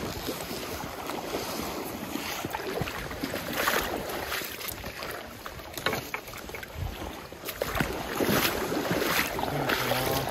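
Legs wading through a shallow, fast river riffle: water sloshing and splashing irregularly over the steady rush of the current.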